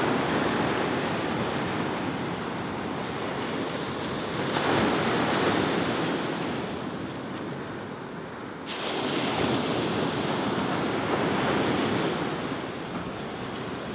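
Ocean surf washing onto a beach, swelling twice, with wind buffeting the microphone.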